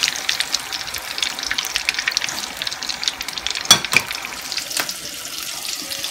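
Breaded northern pike pieces deep-frying in hot oil, a steady sizzle with dense crackling. A sharp click sounds a little past halfway, and the crackle thins toward the end.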